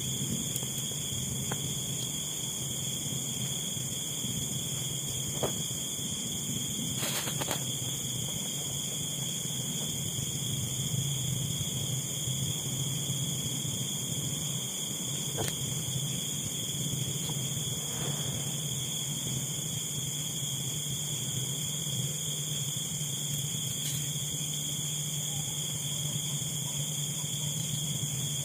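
Steady night chorus of insects, several high tones held without a break, over a low steady hum, with a few faint clicks.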